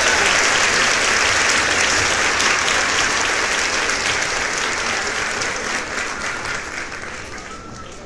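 Large audience applauding, a dense mass of hand clapping that fades gradually toward the end.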